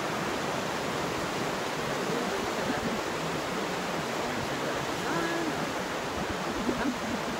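River rapids rushing steadily: white water churning over rocks, an unbroken roar of moving water.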